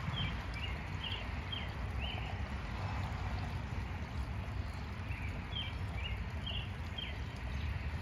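A songbird singing two short phrases of about five quick down-slurred whistled notes each, the second phrase about five seconds in, over a steady low rumble.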